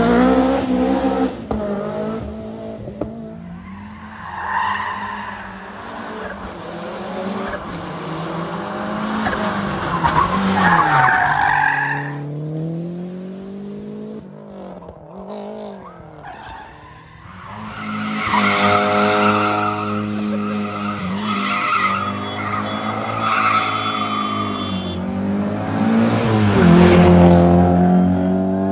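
Rally car engines revving hard, pitch climbing and dropping with gear changes and lifts, with some tyre squeal. It is loud near the start, fades to a low point about two-thirds through, then builds again to a second loud peak near the end as a car approaches.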